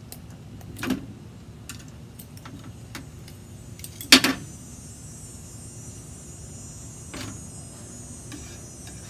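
Metal clinks of a knife, fork and rotisserie spit forks against each other and a metal baking sheet as the spit forks are worked out of a roast chicken: one clink about a second in, a louder one just after four seconds, and lighter ticks between.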